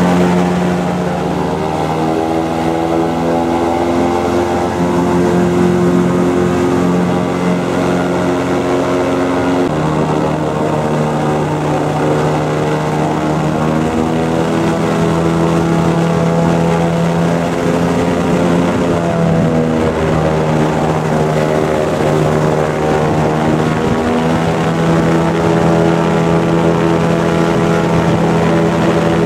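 Airboat's engine and aircraft-style propeller running very loud at speed, its pitch stepping and sliding up and down several times.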